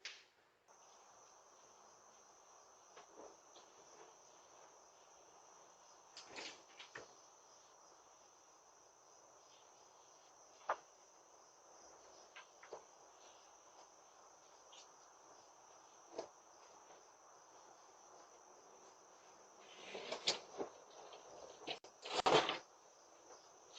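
Faint steady high-pitched drone, insect-like, with scattered single clicks and knocks, and a busier patch of knocking and rustling about twenty seconds in.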